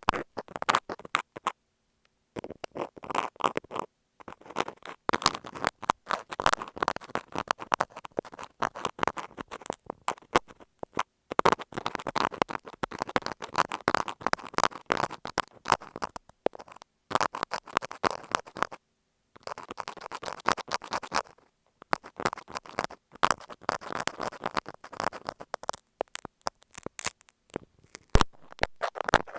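Dressmaker pins scratching and tapping over masking tape on an earphone microphone: close, crackly scratching in runs of a few seconds, broken by short pauses.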